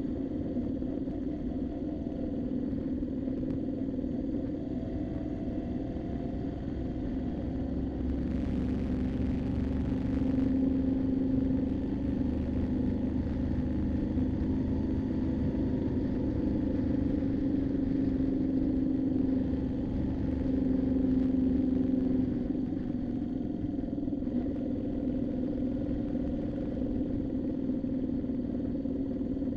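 Moto Guzzi V7's air-cooled transverse V-twin running under way, its note rising and falling gently with the throttle and a little louder through the middle. A brief rushing hiss comes in about eight seconds in and lasts a couple of seconds.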